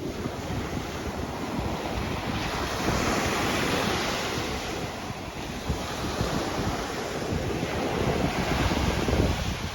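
Ocean surf breaking and washing up the beach, with wind rumbling on the microphone. The wash swells about three seconds in and again, louder, near the end.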